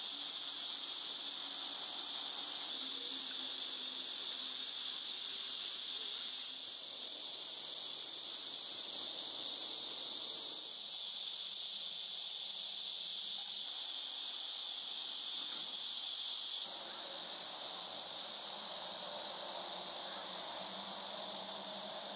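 Steady, shrill chorus of insects, an unbroken high hiss that shifts abruptly in loudness a few times.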